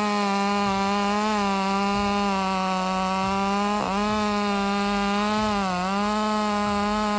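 Chainsaw running at high speed with a steady pitch, dipping briefly twice, about four seconds in and again near six seconds, as the chain bites into the wood.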